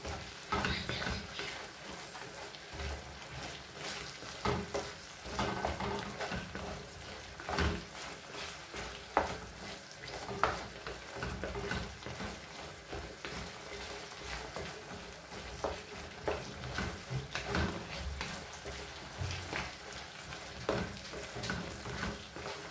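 Minced meat in tomato sauce sizzling in a frying pan, stirred with a wooden spatula that scrapes and knocks against the pan at irregular intervals.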